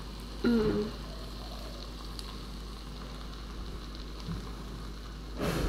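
Sambal with sliced sausages and dried anchovies frying in a pan over low heat, a steady gentle sizzle. There is a brief louder burst of noise near the end.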